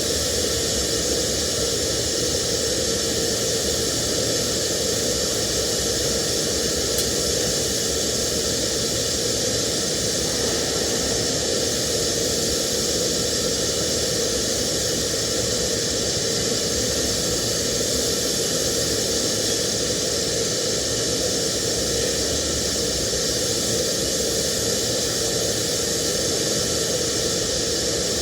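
TIG welding arc hissing steadily and without a break, with a steady hum underneath.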